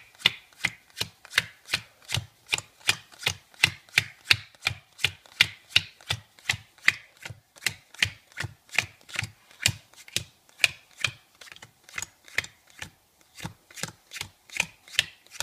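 Bicycle playing cards dealt one at a time onto a table into piles, each card landing with a light snap, about three a second in a steady rhythm.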